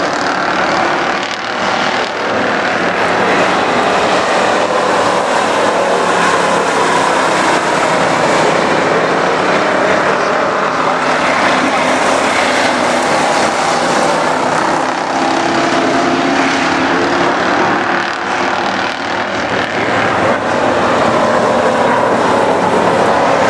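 Street stock race cars' engines running hard around a dirt oval, a loud continuous engine din whose pitch rises and falls as cars pass and back off for the turns.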